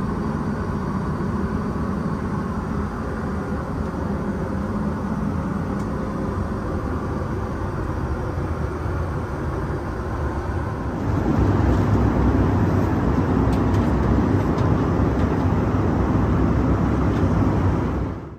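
Steady in-flight noise inside an Airbus A320 at cruise: a constant rush of airflow and engine drone. About eleven seconds in it turns louder and deeper as the sound moves from the lavatory into the passenger cabin.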